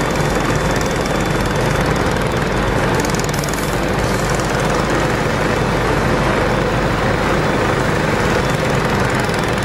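Mini bike's small engine running steadily at cruising speed, heard from the rider's seat under a heavy rush of wind noise.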